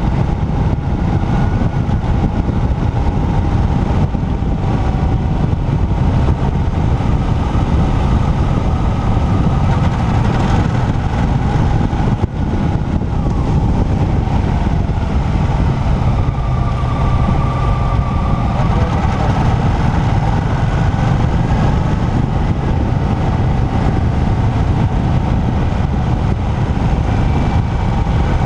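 Riding on a motorcycle at road speed: heavy wind rush on the bike-mounted camera's microphone over the engine's steady running, with a faint whine that shifts slightly in pitch.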